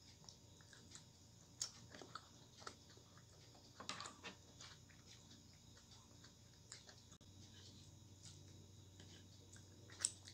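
Faint sounds of eating rice and tangra fish curry by hand: quiet chewing with scattered small clicks and taps of fingers and a spoon on a plate, and one sharper click near the end.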